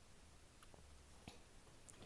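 Near silence with about four faint, scattered clicks: a dog's claws ticking on the floor as it walks around.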